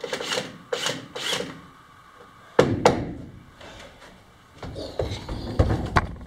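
Pieces of wood being handled on a plank floor: three quick scraping rubs, then two sharp wooden knocks about a quarter second apart, and a run of duller thumps and knocks near the end.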